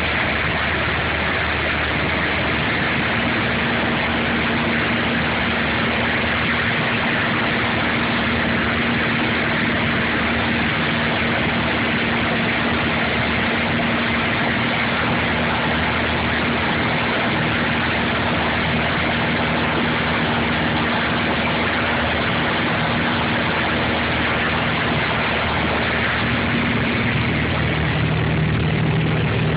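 Piper PA-28's piston engine and propeller running steadily in cruise, heard inside the cabin as a constant drone with airflow hiss. The engine note changes and drops lower near the end.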